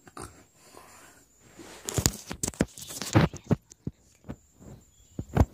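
Handling noise from a phone being picked up and moved: a quick, uneven run of thumps, knocks and rubs against its microphone, starting about two seconds in, with the loudest knock near the end.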